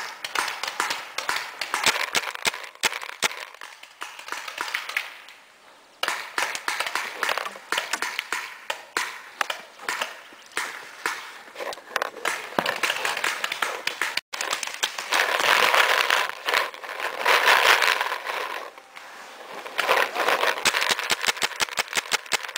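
Paintball markers firing: rapid sharp pops, in bursts, over a rushing noise.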